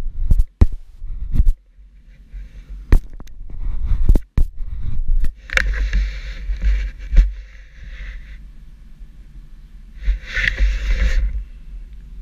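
Action camera being handled as it comes off the quad's handlebar mount. A quick string of sharp clicks and knocks comes first, then scraping and rubbing against the microphone, with a low rumble and patches of hiss.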